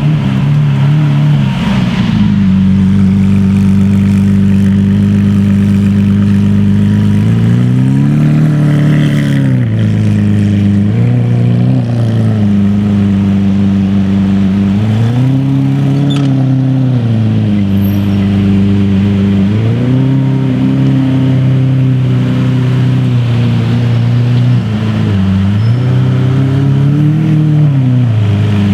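Lamborghini engine idling with a steady note, revved briefly about five times, the pitch rising and dropping back to idle each time.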